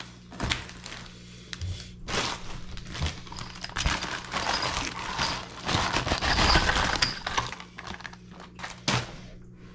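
Plastic packaging crinkling and rustling as gear is handled, with scattered sharp clicks and knocks; the rustling is densest in the middle of the stretch.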